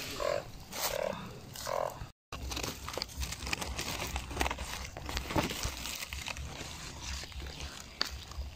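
Frogs calling, three short croaks about 0.7 s apart in the first two seconds. After a brief cut, dry leaves rustle and crackle as a hand grabs and handles a frog in the leaf litter.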